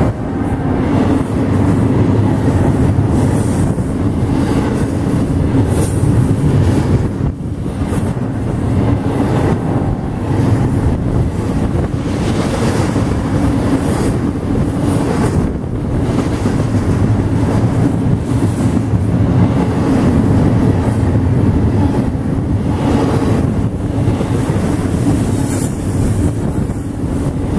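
Double-stack intermodal freight train passing close by: the loud, steady rumble and clatter of its car wheels on the rails, dipping briefly a couple of times.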